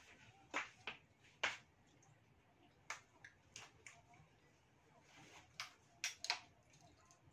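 A person eating with chopsticks: about eight faint, scattered clicks and mouth smacks with quiet gaps between them.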